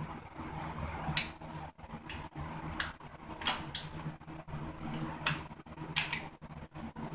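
Light, sharp clicks and scrapes of small metal and plastic parts on a Honda XR50 mini dirt bike being worked by hand during a tear-down, about five of them, the loudest near the end, over a steady low hum.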